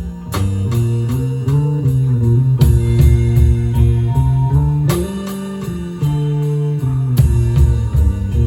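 Live band playing an instrumental passage, with guitar to the fore over sustained bass notes and regular drum hits.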